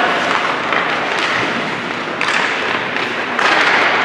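Crowd chatter in a large hall during a game, with scattered thuds and taps.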